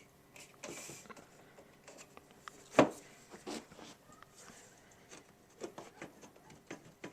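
Plastic top cover of a Yamaha YPG-525 keyboard being handled and worked loose: scattered clicks and knocks with brief rubbing, one sharper knock about three seconds in.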